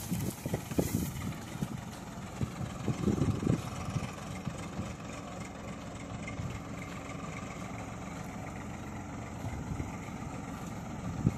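Sonalika tractor's diesel engine running steadily as it hauls a trailer loaded with rocky soil along a dirt track. There are a few low thumps in the first few seconds.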